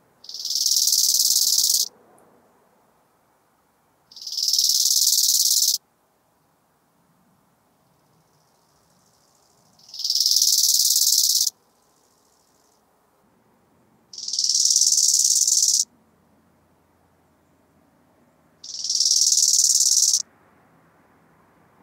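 Bow-winged grasshopper (Chorthippus biguttulus) stridulating, rubbing its hind legs against its wings: five high-pitched buzzing phrases of about two seconds each, a few seconds apart, each swelling in loudness and then cutting off abruptly.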